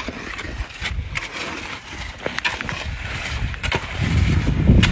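Steel shovel scraping and knocking through a dry sand, gravel and cement mix on the ground, with several sharp scrapes. A louder low rumbling noise builds near the end.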